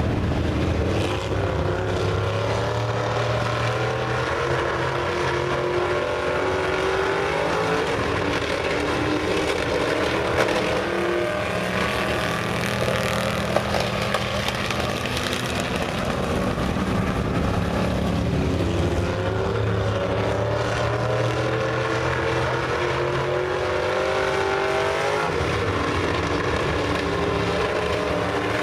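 Dirt-track stock cars racing around a dirt oval, their engines rising and falling in pitch in long repeating swells as they go around the track.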